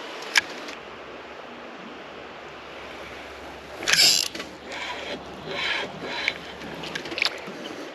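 Steady rush of creek water around a kayak, with a sharp click near the start, a short louder splash about four seconds in, and lighter splashing and knocking after it.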